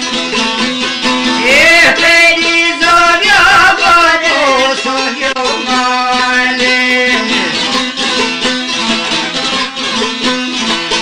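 Albanian folk music: a plucked long-necked lute plays quick repeated notes over a steady drone. A voice sings one long, wavering, ornamented phrase from about a second and a half in until about five seconds in, then the lute carries on alone.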